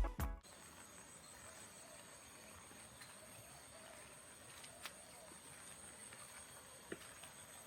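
Music cuts off in the first half second, then faint outdoor ambience of insects chirring steadily at a high pitch, with a few faint taps.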